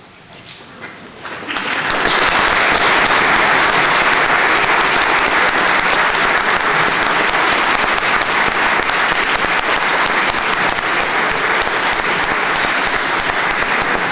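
Audience applauding: a few scattered claps at first, then, about a second and a half in, the whole audience joins in with dense, steady applause.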